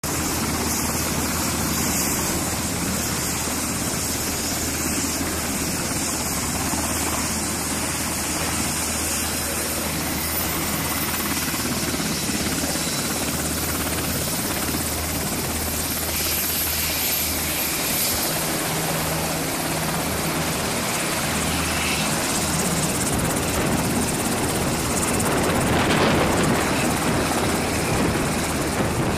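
Navy H-60 Seahawk helicopter running on the ground, its twin turboshaft engines whining and main rotor beating steadily. The sound grows a little louder near the end as the helicopter turns on the ramp.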